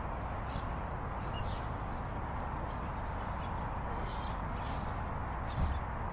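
Outdoor ambience: a steady low rush with small birds chirping briefly now and then, and a single low thump near the end.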